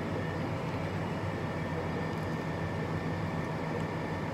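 Steady drone of a tractor engine heard from inside the cab while it pulls an anhydrous ammonia applicator across the field.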